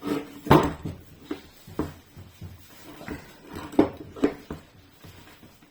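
Pliers gripping and turning the impeller nut on a sewage pump's shaft: a series of short metallic clicks and knocks as the nut is tightened.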